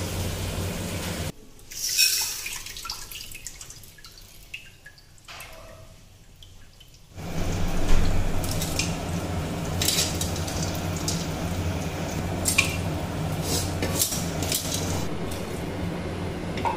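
Cooked snails in their shells and a metal spoon clinking and scraping as the snails are spooned from a wok into an aluminium pressure cooker, many sharp clicks over a steady background hum.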